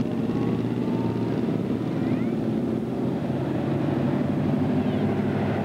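Modified cars' engines running at low revs as the cars cruise slowly past, a steady low exhaust note.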